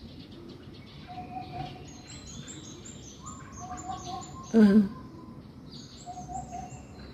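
Eurasian hoopoe calling, a low three- to four-note hooting 'hoop-hoop-hoop' repeated three times, about every two and a half seconds, over high chirping of other small birds. A brief loud voice-like sound cuts in about halfway through.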